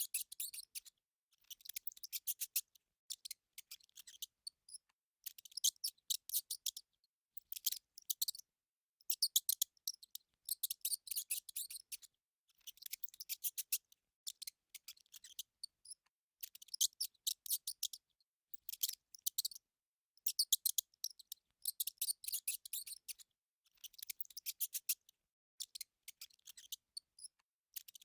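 Rat sounds: rapid, high-pitched clicking chatter in repeated bursts of about a second, with short pauses between them.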